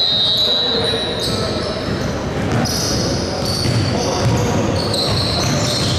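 Basketball game sounds: the ball bouncing on the court, sneakers squeaking in short high chirps, and indistinct players' voices.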